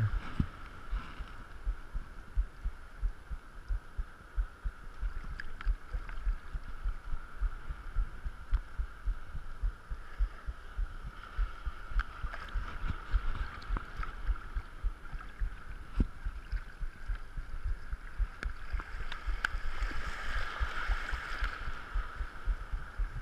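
Small waves washing and foaming over the shallows, the wash swelling twice, about halfway through and again near the end, over a stream of dull, irregular low thumps.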